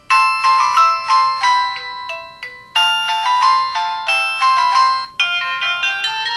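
Polyphonic ringtone melodies from a Samsung SCH-V500 mobile phone, with no bass. One tune starts right at the beginning, a second about two and a half seconds in, and a third about five seconds in.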